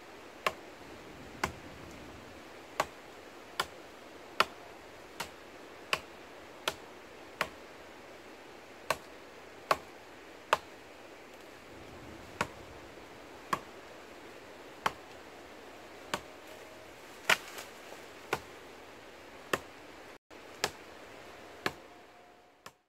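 A blade chopping through brush and branches: about twenty sharp strikes at roughly one a second, unevenly spaced, over a steady background hiss.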